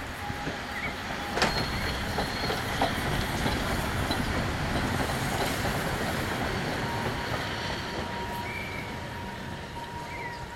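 Steam locomotive passing at close range on the track: a steady rumble of wheels and running gear that swells with a sharp knock about a second and a half in, then eases off toward the end.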